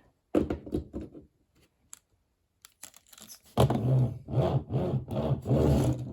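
Handling noises: rubbing and scraping with scattered clicks, as toy monster trucks and track pieces are handled. A short patch comes about half a second in, then a quiet stretch, then denser rubbing from about halfway through.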